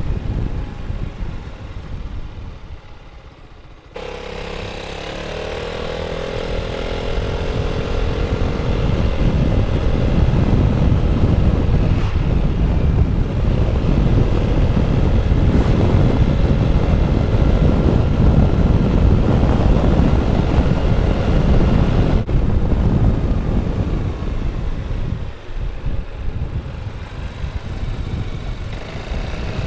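Yamaha XMAX 300 scooter's single-cylinder engine on its stock exhaust, heard while riding, with wind rushing over an exposed lavalier microphone. It fades at first as the scooter slows. About four seconds in, the engine note picks up and pulls, building to a steady run at speed with heavy wind noise. It eases off briefly a couple of times near the end.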